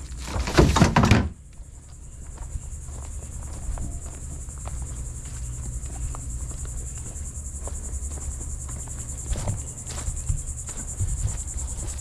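A brief loud clatter and knocking, about a second long, right at the start. Then a steady high insect trill, with a few soft knocks and thunks later on.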